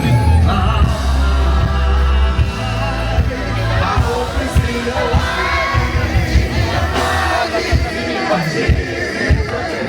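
Loud live pop music with a heavy bass line and a steady beat, voices singing over it and a crowd joining in.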